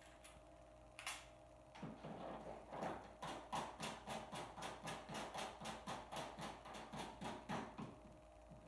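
Hold-down clamps being tightened down in the T-track of a CNC router table: a single click about a second in, then a fast, even run of sharp clicks, about four a second, that stops near the end. A faint steady hum lies underneath.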